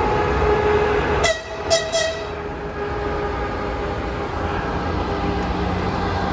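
EP2K electric locomotive hauling a passenger train past at close range, with a steady rumble and hum as it pulls away. About a second in it gives three short high toots of its horn.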